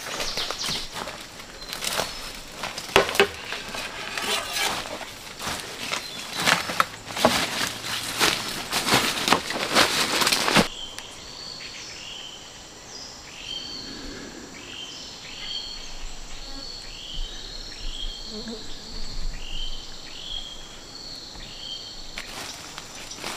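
Footsteps rustling through dry leaf litter and brush, dense and uneven, cutting off suddenly about ten seconds in. Then a run of short high chirps from a bird or insect repeats about twice a second, and footsteps return near the end.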